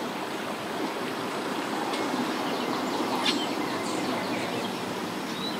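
Mercury 50 outboard pushing a small boat away at low speed: a steady churning wash of motor and propeller water, with no clear engine note standing out.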